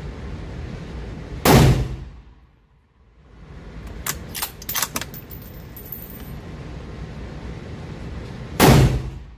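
Two shots from a Ruger American bolt-action rifle in .308, about seven seconds apart, each with a short echo off the walls of an indoor range. Between them comes a quick run of sharp metallic clicks as the bolt is worked.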